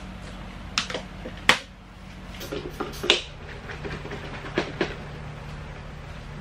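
Sharp clicks and knocks from a laptop being handled, with a short rustle of a cloth wiping its lid, over a low steady hum.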